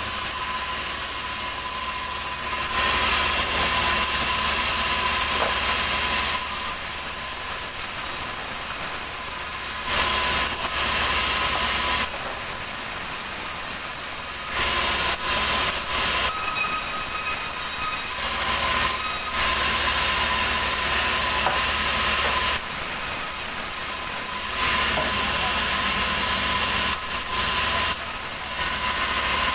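Large sawmill band saw running with a steady whine, getting louder in several stretches of a few seconds as the blade cuts through a big ulin (Borneo ironwood) log.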